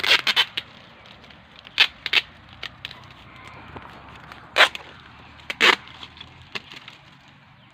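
Sharp wooden knocks from cutting a mango tree: a quick cluster of three right at the start, then single strikes about two seconds in, again at about four and a half seconds, and a last one near five and a half seconds, irregularly spaced.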